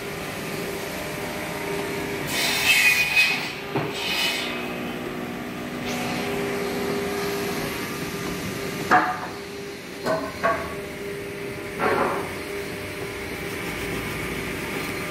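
Woodworking shop sounds: a steady machine hum, two short rasping bursts a few seconds in, then four sharp knocks spread over a few seconds.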